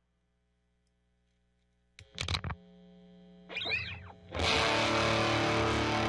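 Electric guitar through a home-built Harmonic Percolator fuzz pedal fitted with a PNP and an NPN transistor. After about two seconds of near silence come a few scratchy muted picks and a short note, then a loud fuzz-distorted chord rings out from about four and a half seconds in.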